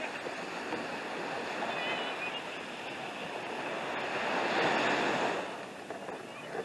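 Ocean surf washing onto the beach, a steady rush that swells to its loudest about four to five seconds in as a wave breaks.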